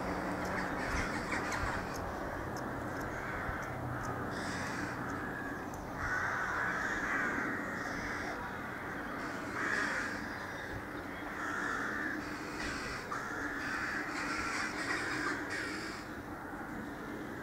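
Crows cawing repeatedly in harsh calls about every second or two, over the low steady hum of an approaching Irish Rail 22000 class diesel multiple unit.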